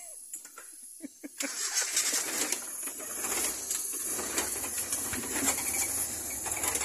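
Old cab-over van's engine starting up about a second and a half in, then running.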